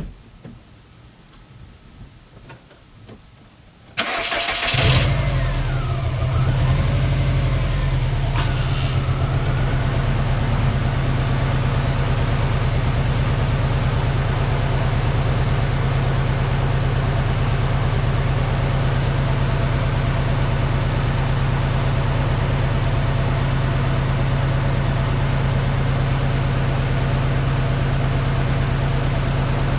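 A 2006 Subaru WRX's turbocharged flat-four engine cranked by the starter about four seconds in, catching and settling into a steady idle.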